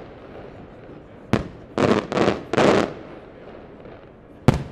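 Aerial firework shells bursting. There is a sharp bang about a second and a half in, followed by three rougher bursts of noise over the next second or so, and another sharp bang near the end.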